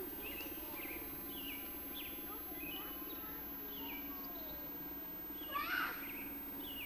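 Small birds chirping repeatedly in short, quick calls over a steady low hum, with one louder burst of calls about five and a half seconds in.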